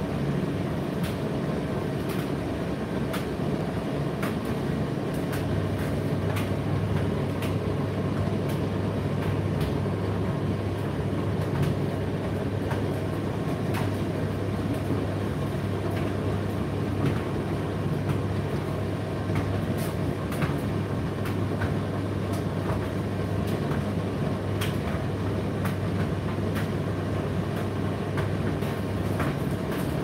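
Indesit IDC8T3 condenser tumble dryer running mid-cycle: a steady motor and fan hum as the drum turns, with frequent irregular light clicks from the tumbling load. A deeper hum sets in about five seconds in and stops shortly before the end.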